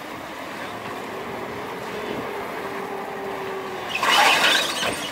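Small car ferry's engine running with a steady hum as it comes in to the slipway. About four seconds in, a loud rushing noise rises and fades within a second.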